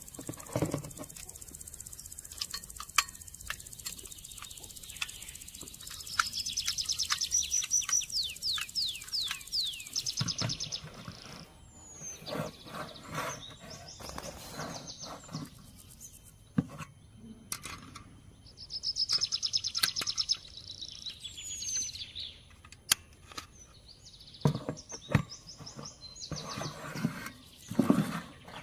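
Metal clicks and knocks of a portable card-type camping gas stove being handled, its folding pot supports and legs unfolded, with duller thumps near the end as a gas canister is set down against it. Birds chirp and trill in the background in two spells of fast repeated notes.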